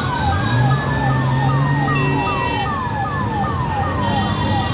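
Fire engine siren: a quick falling sweep repeated about two and a half times a second, over a second long tone that slowly rises and then holds. A low steady hum runs underneath.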